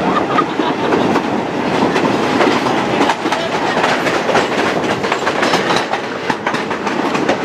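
Two State Railway of Thailand passenger trains running side by side on parallel tracks, heard from an open coach window: steady rolling noise with steel wheels clattering over rail joints.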